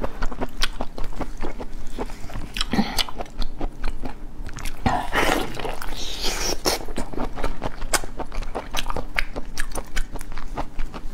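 Raw spiny lobster tail shell crackling and clicking as gloved hands pry and snap its segments apart, in many sharp clicks with a denser run of cracking about five seconds in.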